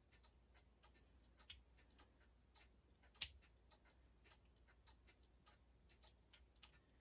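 Near silence broken by faint small clicks and ticks, with one sharper click about three seconds in.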